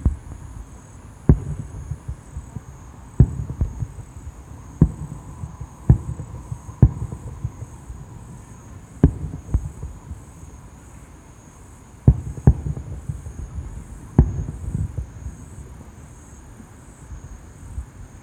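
Aerial fireworks bursting: about ten sharp bangs at irregular intervals, each trailed by a low rumbling echo. A steady high insect chirring runs underneath.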